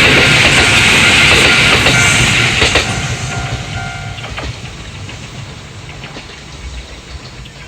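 Kintetsu electric train running past on the rails, with wheels clicking over the rail joints. It is loud for about the first three seconds, then fades steadily as the train moves away.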